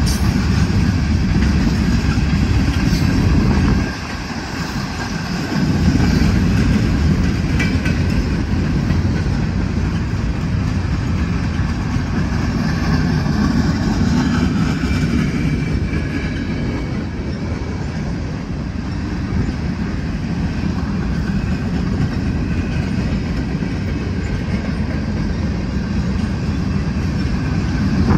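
Freight cars of a manifest train, tank cars and covered hoppers, rolling past on the mainline: a steady rumble and rattle of steel wheels on the rails, with a short dip in loudness about four seconds in.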